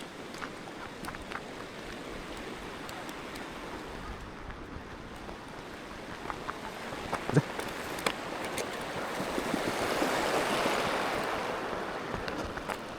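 Footsteps of a hiker walking on a trail, faint ticks of boots over a steady rushing noise. The rushing swells loud about two-thirds of the way through and then fades. There is one sharp knock about halfway.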